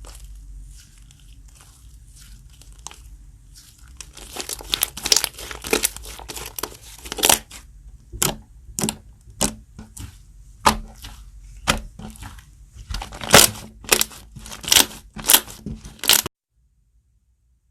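Glue-based slime being squeezed and poked by hand, making wet crackling and popping squishes. It is faint at first, then louder from about four seconds in, with a squish roughly every half second to a second, and it cuts off abruptly near the end.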